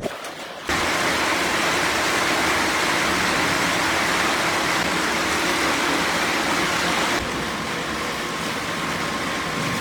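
Electric power tool grinding or sanding the steel of the sword: a steady, loud grinding noise with a motor hum. It starts abruptly about a second in and runs a little quieter for the last few seconds.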